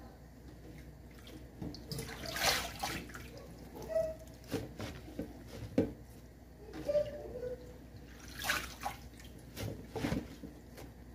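Water splashing and dripping in a stainless steel sink as leafy greens are washed by hand, in irregular bursts every second or so as the wet leaves are lifted and turned.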